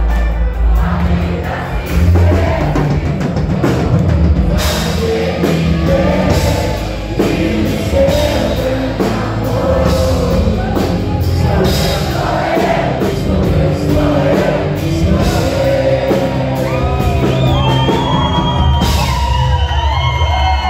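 Live band music with a male lead singer and drum kit, played loud. Near the end the song gives way to the audience cheering and whooping.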